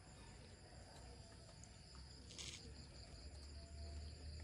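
Near silence with a faint, steady high-pitched drone of insects, and a brief hiss about halfway through.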